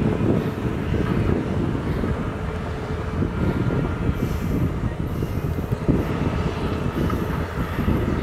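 Heavy diesel engines of a hydraulic excavator loading a dump truck, running steadily with a low rumble that rises and falls slightly.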